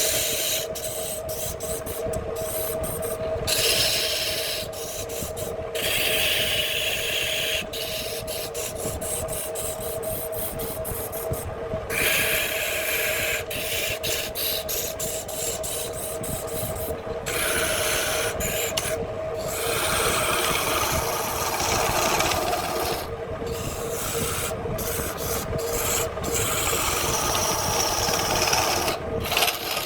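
Handmade wood lathe running with a steady motor hum while a turning tool scrapes and cuts the spinning wood. The cutting noise comes and goes in stretches, with many abrupt short breaks.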